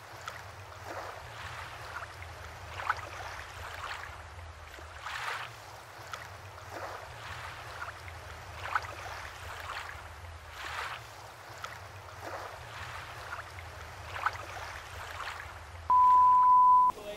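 Sea surf washing in, a noisy wash that swells about every two seconds over a low hum. Near the end a television test-card tone cuts in: one steady beep about a second long, the loudest sound here.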